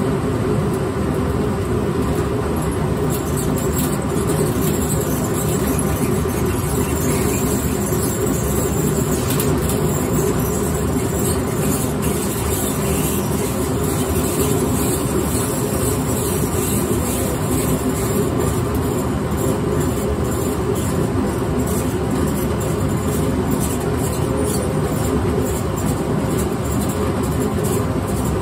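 Grain mill running steadily, crushing malted barley as it feeds down from the hopper: a loud, even mechanical noise that never lets up.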